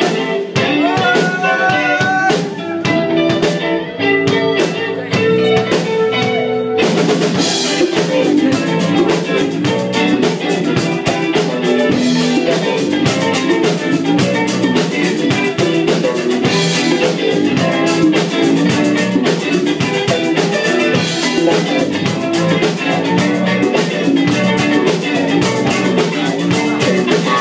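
Rock band playing live: two electric guitars, bass guitar and drum kit. About seven seconds in, the drums come in fully with cymbals and the band plays on at full strength.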